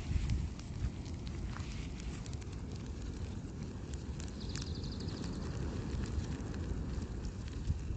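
A recliner burning in an open fire, with scattered crackles and pops over a steady low rumble of wind on the microphone. About four and a half seconds in, there is a quick run of sharp ticks.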